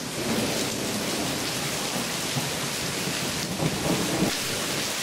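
Steady rain falling, an even dense hiss with a low rumble underneath.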